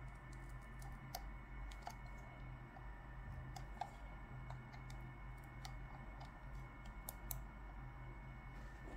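Light, irregular plastic clicks and taps from a Logitech MX Master computer mouse being handled and worked on, a dozen or so spread unevenly, over a steady low electrical hum.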